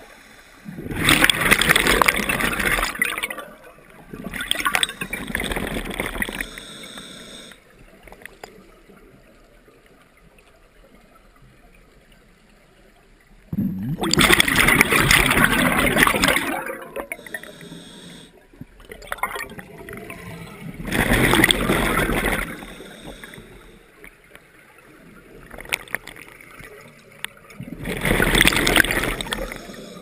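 Scuba diver breathing through a regulator underwater: exhaled bubbles burst out in loud gurgling rushes every several seconds, with quieter pauses between breaths.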